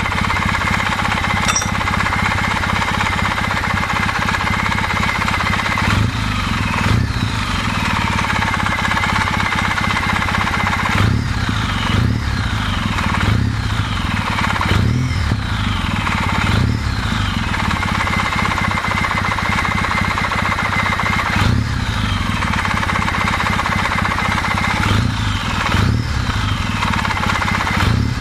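Kawasaki W650 air-cooled parallel-twin engine running at idle, with the throttle blipped about ten times in the second half so the revs rise and fall back each time. The engine is being run warm to check for a knock from the camshaft gear.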